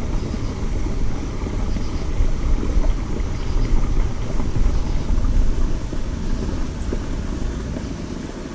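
Wind buffeting the microphone: a steady, fluctuating low rumble that eases a little near the end.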